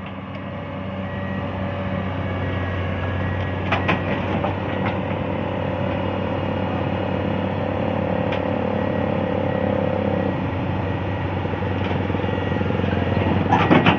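Komatsu PC200 excavator's diesel engine running under load as the machine tracks up the ramps onto a self-loader truck, with a higher whine that rises and holds for several seconds in the middle. A short high beep repeats in stretches near the start and near the end.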